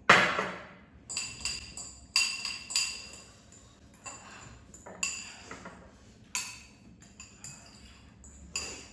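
Forks clinking and scraping against clear glass bowls as two people eat noodles: about a dozen irregular, ringing clinks, the loudest right at the start.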